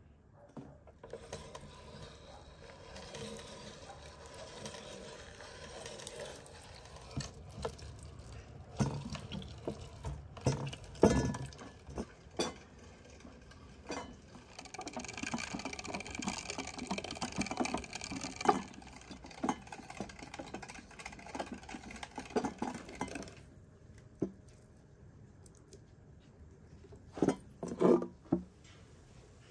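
Hand-cranked metal meat grinder being turned, grinding raw meat, with many small clicks and knocks from the crank and feed. The cranking stops a few seconds before the end, and a couple of short knocks follow.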